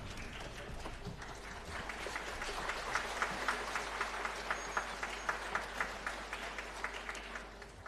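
Concert hall audience applauding after an orchestral performance, with a steady run of loud claps, about four a second, standing out in the middle.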